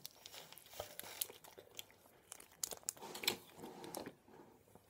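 Faint, scattered crinkles and small clicks of plastic ice-pop tubes being squeezed and handled while the frozen lollies are sucked and bitten.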